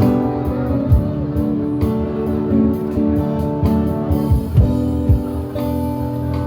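Live street-band music without vocals: guitar strummed and plucked over held chords, with low beats thumping at uneven intervals.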